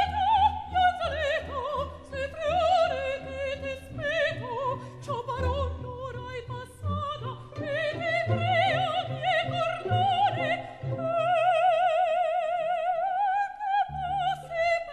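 Operatic singing with orchestra: high voices sing with wide vibrato over the orchestra, ending on a long held high note near the end.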